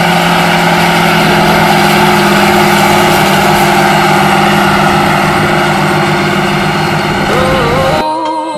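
John Deere 8R-series tractor's diesel engine running steadily while pulling a trailer, a constant even hum; music cuts in near the end.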